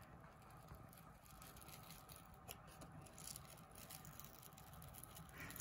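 Near silence: room tone with a low hum and a few faint ticks.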